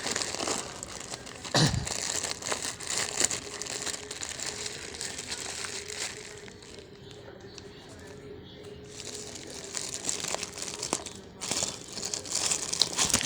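Plastic packaging crinkling and rustling as it is handled and opened by hand, with a heavy thump about a second and a half in. The rustling dies down for a few seconds in the middle, then starts again.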